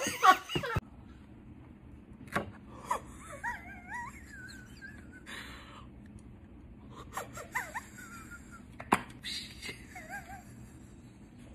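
A woman laughing loudly for a moment, then quiet room noise with faint, stifled laughter: a few wavering, squeaky high-pitched sounds and short breathy noises.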